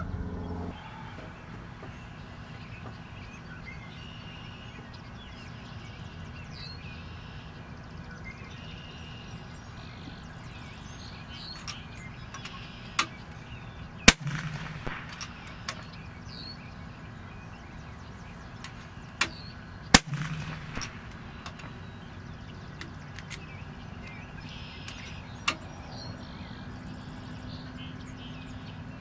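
Two shots from a PCP air rifle about six seconds apart, each a sharp crack, the first about halfway in. Quieter clicks come about a second before each shot and once more near the end, and small birds chirp faintly throughout.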